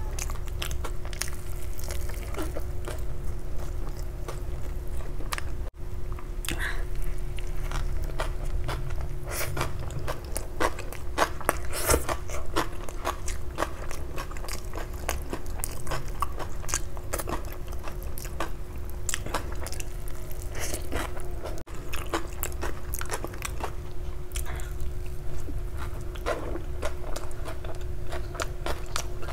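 Close-miked eating of bun pizza: bites into soft bread with frequent sharp clicks and crunches of chewing, over a faint steady hum.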